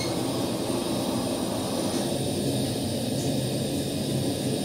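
Steady, even rushing noise of workshop machinery running, with no hammer blows in it.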